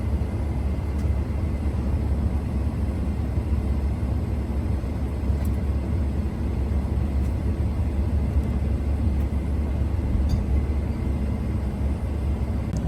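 Pickup truck running, a steady low rumble of engine and road noise.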